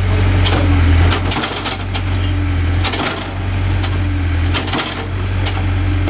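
Case backhoe loader's diesel engine running steadily, with a scatter of sharp clicks and knocks over it.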